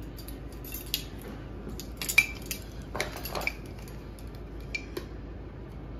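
Metal measuring spoons clinking and clicking in the hands, a string of short sharp clinks with a brief high ring, the loudest about two seconds in. Later come knocks and clicks from a glass coffee jar being handled and opened.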